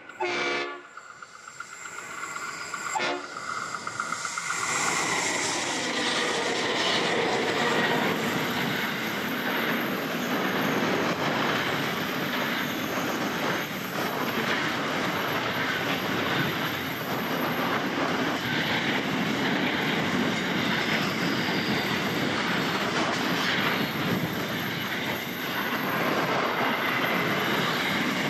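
Two G class diesel locomotives sound a short horn blast in the first second, with a briefer one about three seconds in. The train then comes past and a long string of loaded container wagons rolls by in a steady clatter of wheels over the rail.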